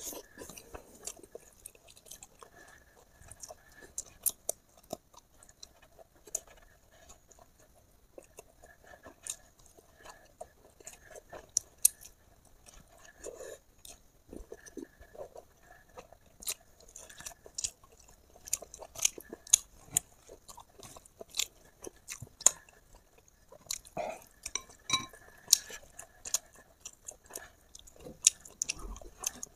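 A person chewing food close to the microphone: irregular wet smacks and crunches, often several a second, with short lulls between mouthfuls.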